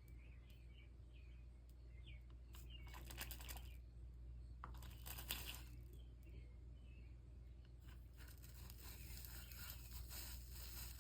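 Faint crackling and sizzling from stained-glass soldering, the iron melting solder and flux along the seams, in short spells about 3 and 5 seconds in and again from about 8 seconds on, over a low steady hum.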